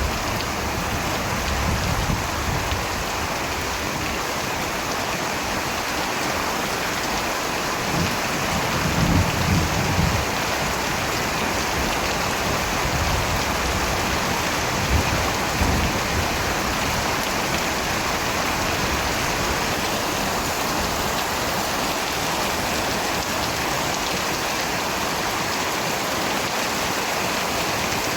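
Steady, dense rainfall with low rolls of distant thunder, the strongest about nine seconds in and a shorter one near the middle.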